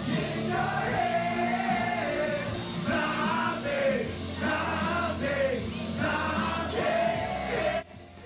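Music with a singing voice: sung phrases over a band accompaniment, cutting off sharply just before the end.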